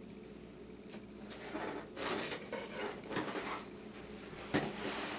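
Rustling and scraping from a boxed airsoft rifle being handled, with a sharp knock about four and a half seconds in.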